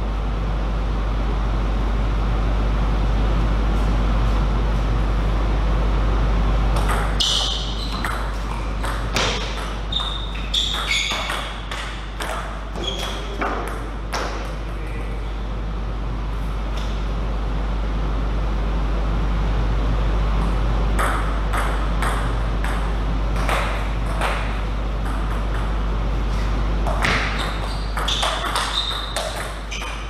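Table tennis ball clicking on the table and off the bats in two spells of rapid hits, with a few short high squeaks among them, over a steady low hum.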